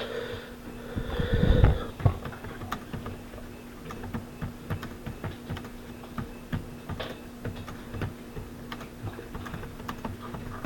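Typing on a computer keyboard: irregular key clicks throughout. A louder low thump comes between one and two seconds in.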